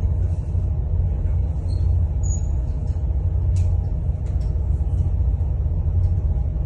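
Steady low rumble of the boat's engine running underway.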